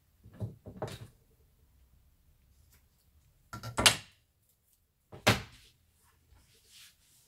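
Light knocks and clacks of crafting tools being handled on a desk as a roll of double-sided tape and scissors are picked up and set down: a couple of soft knocks near the start, then two sharp clacks about four and five seconds in, the first the loudest.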